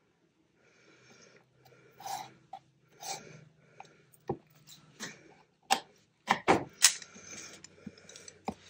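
Hands handling and pressing layered fabric scraps and lace onto a craft mat: soft rustling broken by scattered clicks and taps, with a cluster of sharper clicks about six to seven seconds in.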